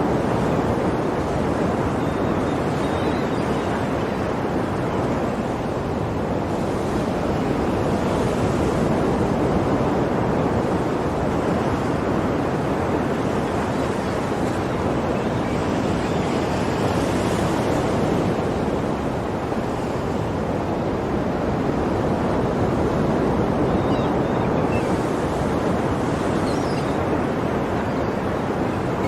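Ocean waves breaking and washing on a shore in a continuous surf, swelling and easing every several seconds.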